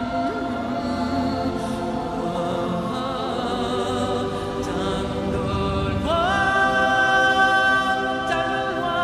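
Background choral music: voices singing slow, held chords, with a voice sliding up into a long held note about six seconds in.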